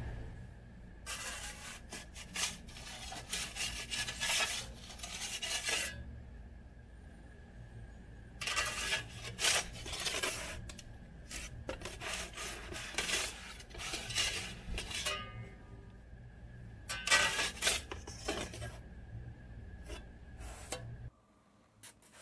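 A perforated metal pizza peel scraping and rubbing across the floor of a wood-fired brick oven in several passes of a few seconds each, as the pizza is turned, over a low steady hum. The sound cuts off near the end.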